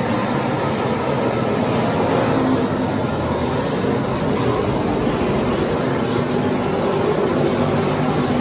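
Pure/factory stock race cars running together at racing speed on a dirt track: a steady, loud engine drone from the whole field.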